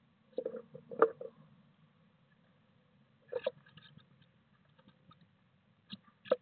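A blue tit moving about inside a wooden nest box: short clusters of sharp knocks and scratching as its claws and wings hit the wood. They come about a second in, again about three and a half seconds in, and twice near the end.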